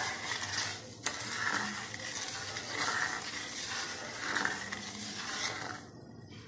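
A ladle stirs milk and sugar in a nonstick wok, scraping around the pan bottom in repeated strokes. The scraping stops about six seconds in.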